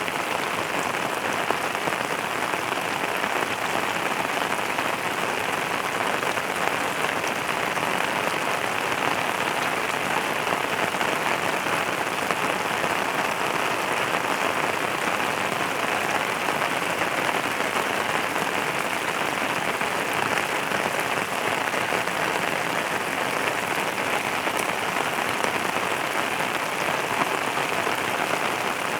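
Steady rain falling on a surface, an even hiss with fine scattered drop ticks that does not change.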